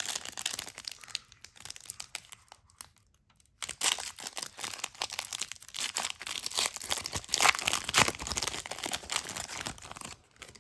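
The wrapper of an Upper Deck Marvel Annual trading-card pack being torn open and crinkled, in a run of crackling bursts with a short pause about three seconds in.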